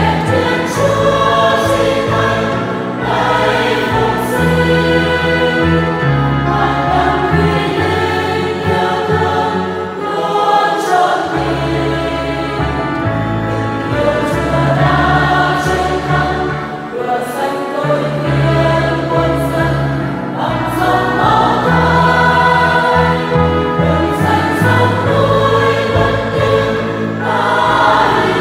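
Church choir singing a Vietnamese Catholic hymn in parts, over held low accompaniment notes that change every couple of seconds.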